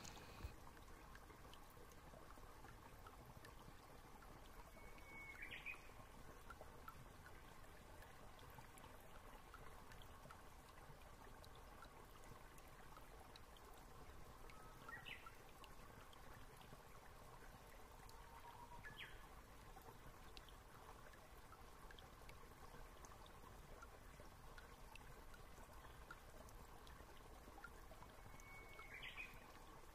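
Near silence: faint room tone, with a few very faint short chirps.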